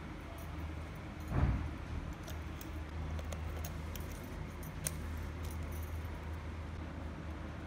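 Scattered light metal-and-glass clinks and jingles from handling a small red-glass antique kerosene lamp and its brass burner. There is a dull bump about a second and a half in and a steady low hum underneath.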